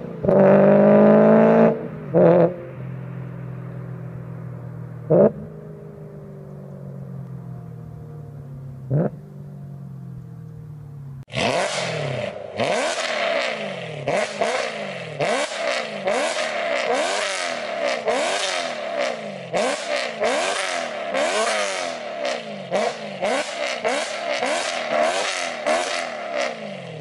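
A car engine accelerating hard away, rising in pitch through quick gear changes, then fading into the distance with three short sharp blips. After a cut at about eleven seconds, a BMW M3's V8 exhaust revs in quick repeated throttle blips, about two a second, with sharp crackles through them.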